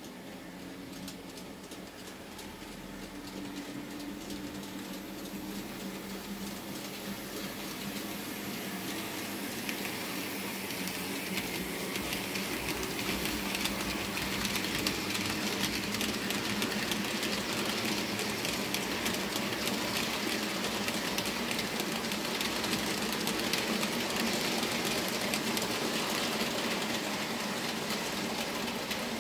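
N-scale model trains running on the layout: the small electric motors whir and the wheels keep up a fast clicking on the track. It grows louder over the first half as the trains come closer and stays loud through the second half.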